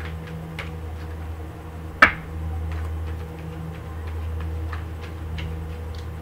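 Tarot cards being shuffled and handled, giving scattered light clicks and flicks, with one sharp, louder click about two seconds in. A steady low hum runs underneath.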